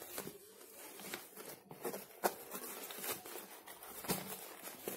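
Rustling and scattered soft clicks of a fabric travel bag with a zipped edge being opened and handled by hand.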